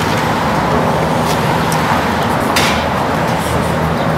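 Steady street traffic noise with a low engine hum. About two and a half seconds in there is a brief metallic rattle as a steel mesh sidewalk cellar grate is pushed open.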